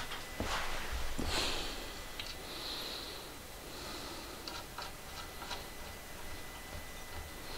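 A few light metallic clicks and taps as a hand handles a small steel part clamped in a bench vise, with soft breathing through the nose between them and a faint steady high-pitched tone.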